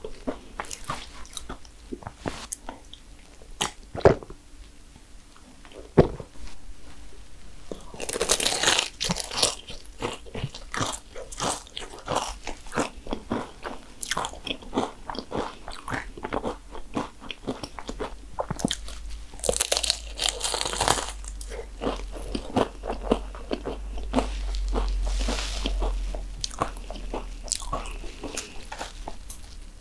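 Close-up eating of cannoli: the crisp fried pastry shells crunch and crackle as they are bitten into, between stretches of chewing, with heavier crunches about eight and twenty seconds in. Two sharp knocks come about four and six seconds in.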